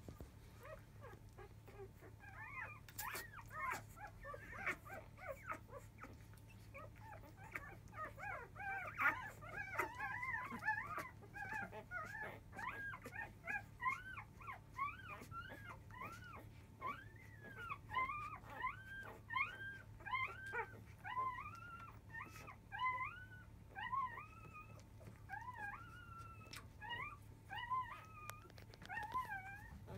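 Five-day-old Labrador retriever puppies squeaking and whimpering while nursing. The short squeals come in an overlapping chorus, thickest about a third of the way in, then thin out to single squeaks two or three a second.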